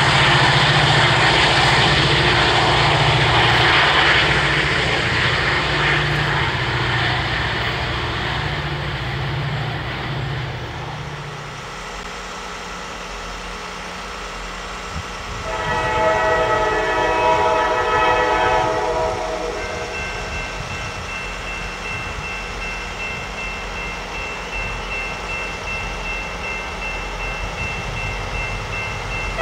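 Freight train approach: a loud low diesel drone for the first several seconds, then after a change of scene a Norfolk Southern road locomotive's air horn sounds one blast of about three seconds just past halfway, over the rumble of the oncoming train.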